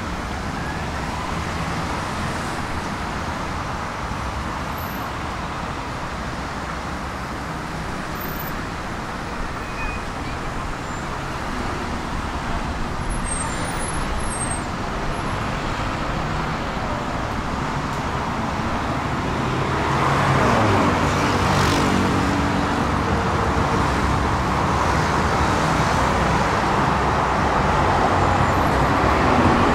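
Steady road traffic from a busy multi-lane road. It grows louder about two-thirds through as a vehicle passes close by, and near the end an arriving tram adds to it.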